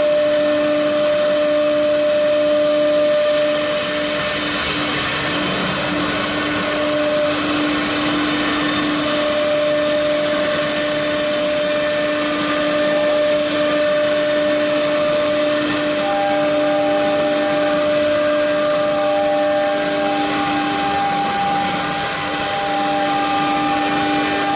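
Four-spindle CNC nesting router running, a steady spindle whine over a loud rushing noise; a second, higher tone joins about two-thirds of the way through.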